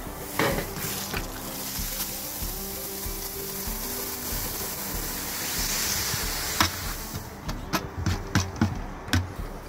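Crushed pilsner malt poured into mash water in a brewing kettle's basket while doughing in: a steady rushing hiss for several seconds. It is followed by a string of knocks and clicks as the container is tipped and tapped empty.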